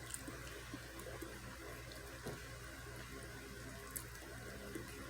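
Faint chewing with small, soft mouth clicks over a steady low hum.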